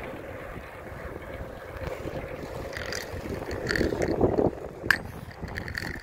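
Wind buffeting the microphone of a camera on a moving bicycle, a low rumbling rush, with a few sharp clicks and rattles between about three and five seconds in.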